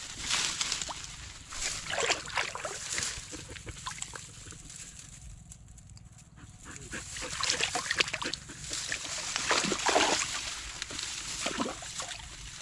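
Hunting dogs rustling and splashing through ditch water and grass while chasing a field rat, with a short whimper about ten seconds in.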